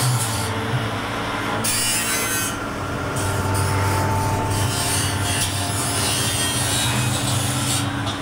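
Rotary drum dryer running on test: a steady mechanical noise from the turning steel drum, its drive and the centrifugal blower, with a low hum underneath.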